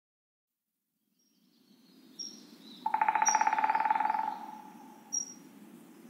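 A woodpecker drumming in a forest: one fast roll of strokes lasting about a second and a half, fading out at the end. It sits over a low forest hiss, with a few short, high bird chirps before and after it.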